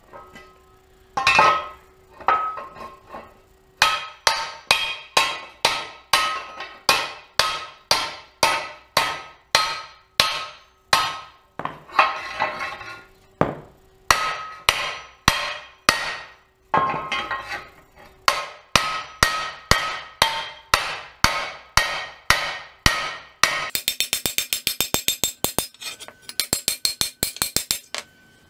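Hammer blows on an aluminum quad skid plate laid over a small anvil, about two strikes a second, each blow ringing. Near the end the hammering changes to a quicker run of quieter taps.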